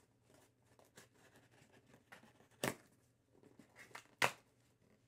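Package being opened by hand: faint rustling and handling of packaging, with two sharp clicks, one about halfway through and one near the end.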